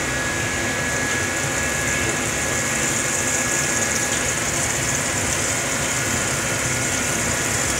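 Steady mechanical hum with a high hiss over it, from the running equipment around a commercial deep fryer. The hiss grows a little louder near the end.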